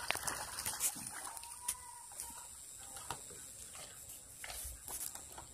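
Outdoor background noise with a steady high-pitched hiss and scattered light clicks and knocks from the fishing rod and reel being handled.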